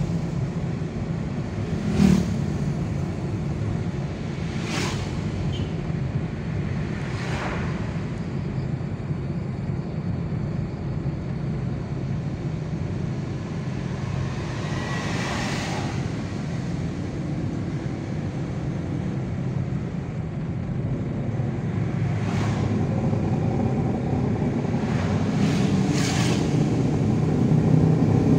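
Steady engine and tyre noise from inside a vehicle driving along a road. Several short whooshes of passing traffic break through it, and there is a brief knock about two seconds in.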